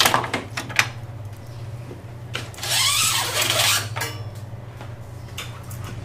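Old brake/stop cable of a Toro push mower being pulled out of its housing and handle: a few sharp clicks and knocks, then about a second and a half of the cable scraping and rasping as it slides free.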